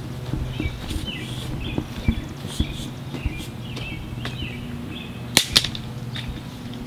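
Birds chirping repeatedly in short calls over a steady low hum, with scattered light clicks and one sharp knock about five and a half seconds in.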